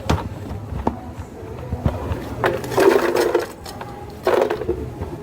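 Drink-making sounds at a cafe counter: a few sharp clicks and knocks, then a rattling burst of about a second two and a half seconds in and a shorter one near the end.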